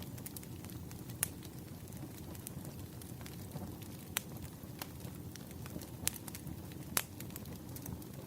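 Wood campfire burning: a steady low rumble of flame with scattered sharp crackles and pops, the loudest about 1, 4, 6 and 7 seconds in.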